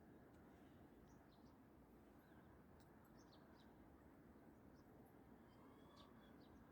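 Near silence: faint, scattered short chirps of small birds over a low background hiss.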